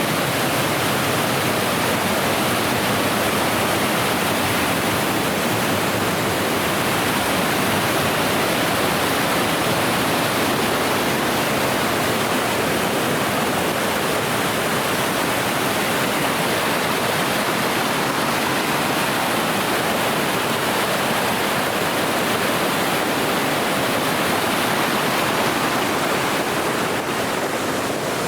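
Waterfall: falling water making a loud, steady rushing noise.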